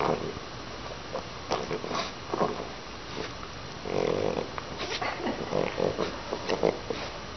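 A French bulldog making short, irregular breathing noises through its flat nose while it play-wrestles with a long-haired cat, with a longer one about four seconds in.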